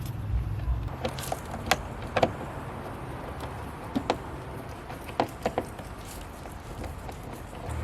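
Scattered sharp clicks and knocks, in small clusters of two or three, from car door trim parts being handled and fitted.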